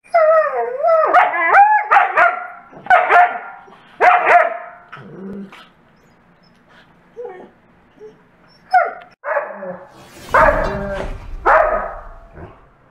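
Wolfdogs vocalizing playfully: wavering yowls that slide down and up in pitch, mixed with short barks and yips in a run of bursts, with a rougher, noisier burst about ten seconds in.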